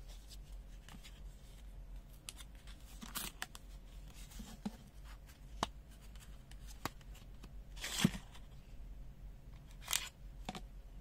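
Cardboard blade packaging being torn open and handled: a string of short tearing, crackling and clicking sounds, the loudest about eight seconds in and another about ten seconds in, as the Makita reciprocating saw blade is pulled free of the card.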